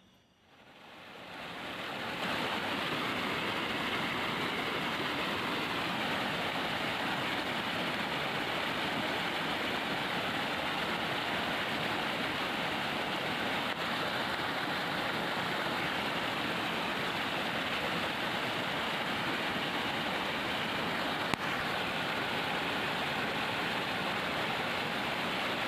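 Steady rush of flowing water, fading in over the first two seconds and then holding even, with a single brief click about two-thirds through.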